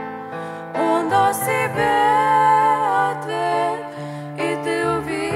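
Girls' voices singing a Russian-language Christian song as a duet, accompanied by a grand piano.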